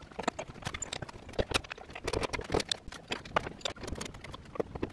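Hand ratchet wrench clicking on the rear suspension bolts of a car: a run of quick, irregular metallic clicks.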